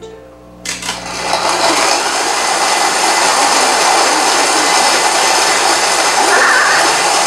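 Stand mixer driving a metal grain mill attachment, grinding wheat berries into flour. A few clicks come as it starts, then a loud, steady whirring grind sets in about a second in.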